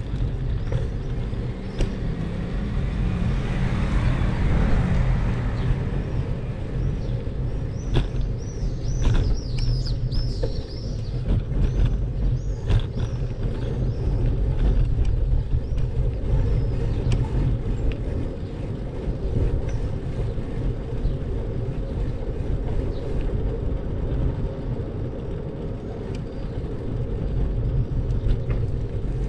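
Steady low rumble of wind and road noise on a camera riding along a street, with a brief swell of hiss about three to five seconds in. Quick high chirps come around nine to eleven seconds in.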